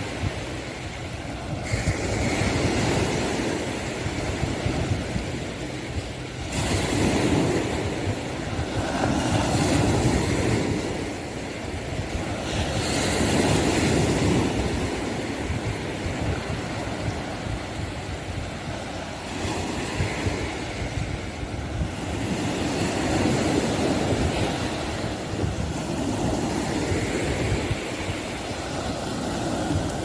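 Ocean surf breaking and washing up the beach, swelling and fading every few seconds, with wind rumbling on the phone's microphone.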